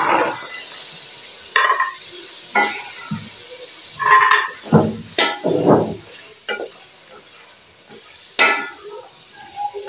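Wooden spatula stirring potato wedges and peas in a metal pot of frying onion-tomato masala, with short scrapes and knocks against the pot about once a second over a steady sizzle of hot ghee.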